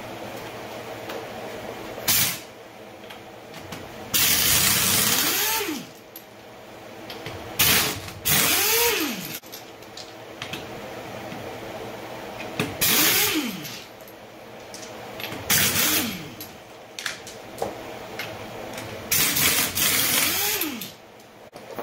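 Pneumatic impact wrench taking the lug nuts off a car's front wheel: about five loud bursts of hammering, each followed by the air motor's whine rising and falling in pitch as it spins free and winds down.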